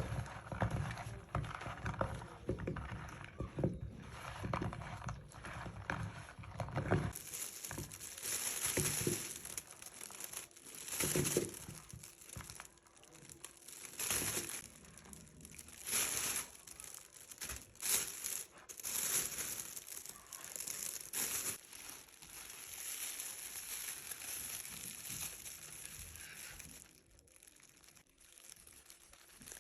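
Plastic oven bag crinkling and rustling as it is handled, in irregular bursts. For the first several seconds a dense run of low, rapid taps comes before the crinkling.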